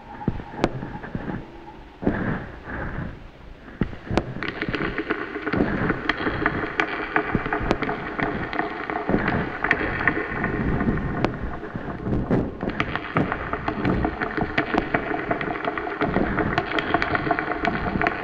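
Experimental noise music: a dense crackling noise texture with many sharp clicks, growing thicker and louder about four seconds in.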